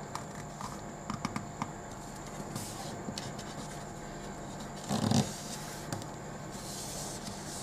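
A sheet of A4 paper handled and creased by hand on a tabletop: small taps and clicks, soft papery swishes, and one louder thump and rustle about five seconds in as the sheet is pressed and shifted, over a low steady hum.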